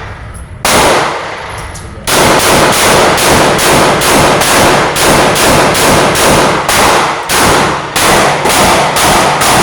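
Glock 22 Gen 2 .40 S&W pistol firing: one shot, a short pause, then a rapid string of shots at about three a second.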